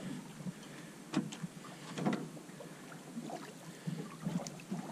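Water splashing and lapping against the side of an aluminium boat as a hooked fish is hauled alongside and grabbed by hand, with a few light knocks.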